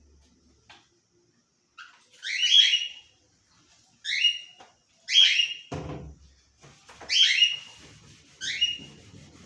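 A bird calling over and over: short, high, rising chirps about once a second, starting about two seconds in. A low knock comes about six seconds in.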